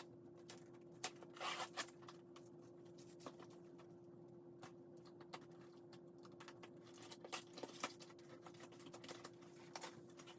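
Faint scattered clicks and rustles of shoe-rack parts and their packaging being handled, over a steady faint hum.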